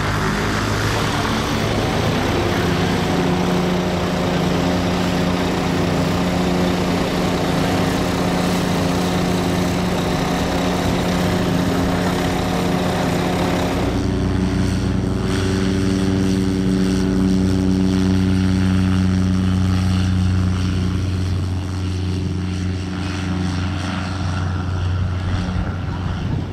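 Propeller-aircraft piston engine running steadily. About halfway through, the sound changes to a motor glider's engine at full power as it takes off and climbs away.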